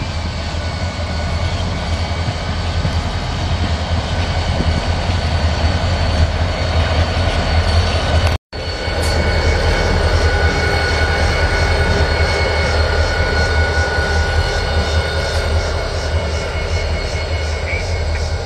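Diesel freight locomotives passing close by: a steady, loud engine drone with a high whine over it and the rumble of wheels on rail. The sound drops out for an instant about eight and a half seconds in.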